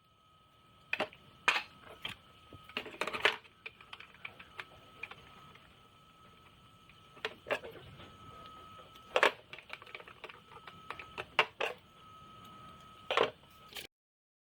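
Irregular sharp clicks and knocks, singly and in quick clusters, over a faint steady high-pitched tone; the sound cuts off abruptly near the end.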